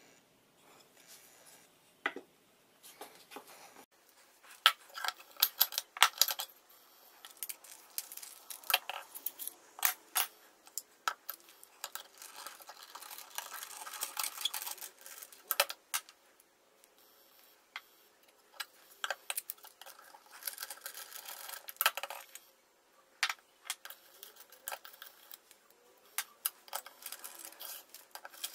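Metal parts of an old Sargent hand plane clicking and clinking against a granite slab as the plane is taken apart, with the scrape and turning of a screwdriver in between. The knocks come irregularly, with a brief lull just past the middle.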